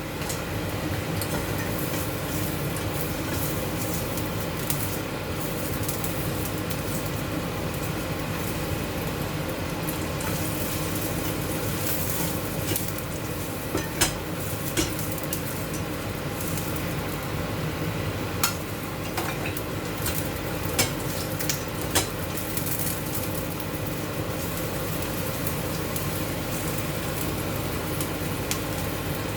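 Marinated chicken sizzling as it fries in hot oil in a pan, with a few sharp clicks of a utensil against the pan.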